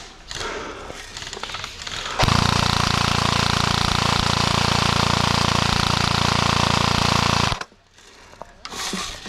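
An airsoft gun firing one long full-auto burst of about five seconds: a loud, fast, even rattle that starts and stops abruptly.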